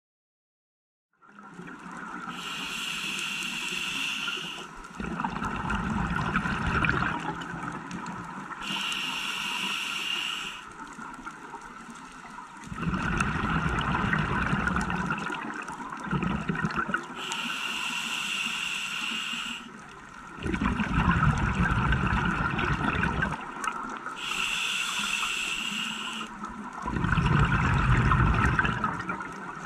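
Scuba diver breathing through a regulator underwater: the hiss of each inhalation alternates with a longer rush of exhaled bubbles, about four breaths, starting about a second in.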